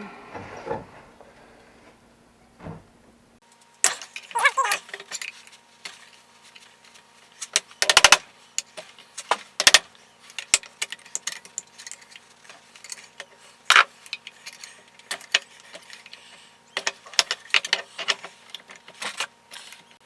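Hand tools clinking and scraping on metal as a stuck thermostat is collapsed and pried out of an International 400 tractor's thermostat housing, with irregular sharp clicks and scrapes from about four seconds in and a few louder strikes in the middle.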